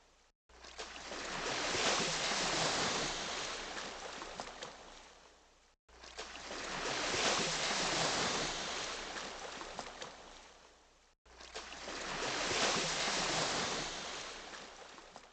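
Ocean waves surging and washing in three swells, each rising and fading over about five seconds, with short silent cuts between them.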